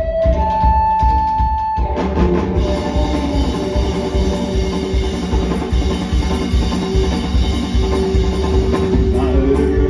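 Live band music without vocals: a sparse opening with a long held note, then the full band comes in about two seconds in, with drum kit and electric guitar playing a steady beat.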